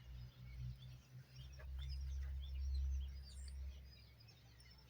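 Several small birds chirping and calling in the background, with a low rumble that swells for a couple of seconds in the middle.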